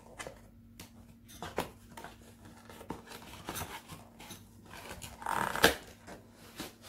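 Cardboard box being opened and handled by hand: flaps and a paper insert pulled and slid, giving scattered clicks and scrapes. About five and a half seconds in there is a louder rustle that ends in a sharp snap.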